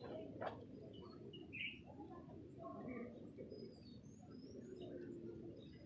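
Faint birdsong: scattered short chirps and whistles from several birds over a steady low background rumble.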